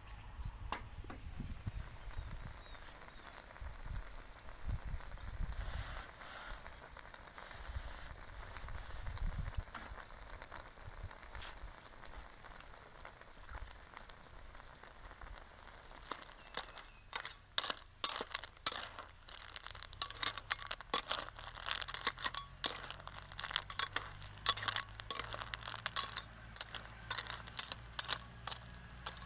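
Snails boiling in a frothy tamarind broth in a frying pan over a wood fire, bubbling and crackling with many small irregular pops, much busier through the second half.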